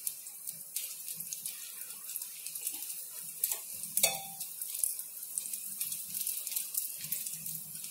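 Oil sizzling on a hot tawa around the edges of a frying Mughlai paratha: a steady high hiss with small crackling pops, and a sharp clink about four seconds in.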